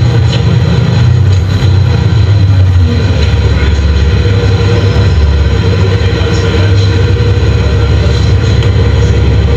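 Nova Bus LFS city bus running along the street, heard from inside the cabin: a loud, steady low drone of engine and road noise.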